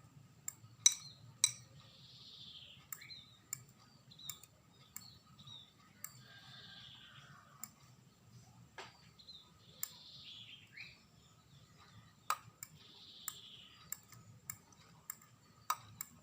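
A fork stirring detergent and glue in a container as the mixture clumps into slime, with irregular light clicks and taps of the fork against the container and soft wet squishing between them.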